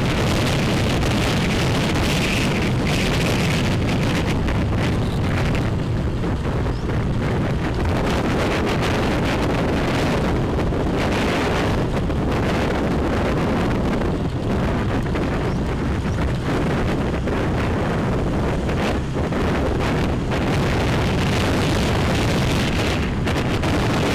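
Steady wind buffeting the microphone of a moving motorbike, with the ride's vehicle noise underneath.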